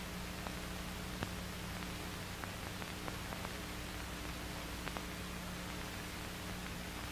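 Steady hiss and low hum of an old film soundtrack between narration, with a few faint scattered clicks, the strongest about a second in.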